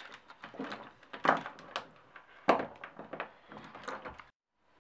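Hand rummaging among small tools and parts on a workbench, looking for a small rubber O-ring: irregular clicks and knocks of objects being moved, cutting off abruptly near the end.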